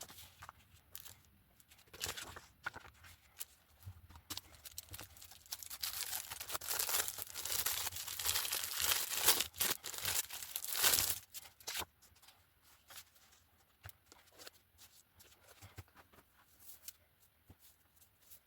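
Packaging being torn open and crinkled by hand, loudest and most continuous from about four to eleven seconds in, with scattered handling clicks and rustles before and after.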